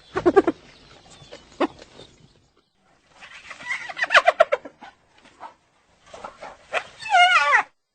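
Spotted hyenas giggling: bursts of high-pitched, stuttering calls, with a rapid run of short notes about four seconds in and a quickly wavering call near the end.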